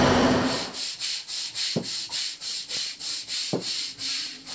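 Rhythmic hand scrubbing in a sailing yacht's cockpit, rubbed back and forth at about two to three strokes a second, with two short squeaks. A steady machinery drone cuts off about half a second in.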